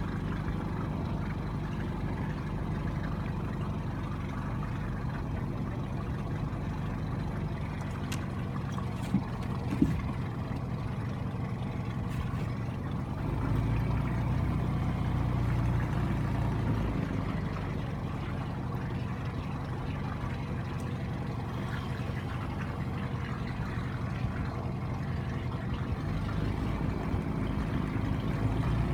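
Small boat's outboard motor running steadily underway, a low even hum that swells for a few seconds about halfway through. Two short knocks come about nine and ten seconds in.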